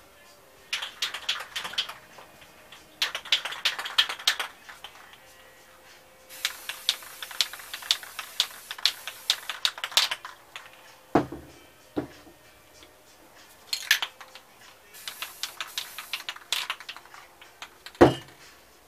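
An aerosol spray-paint can being shaken, its mixing ball rattling in two short bursts, then spray paint hissing onto canvas in longer bursts. Dull knocks of a can being set down on the table follow, the loudest near the end.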